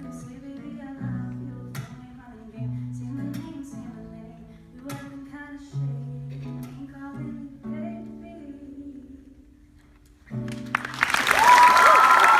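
The closing bars of a song on acoustic guitar: strummed chords with a girl singing, dying away, then a last chord. About eleven seconds in the audience breaks into loud applause.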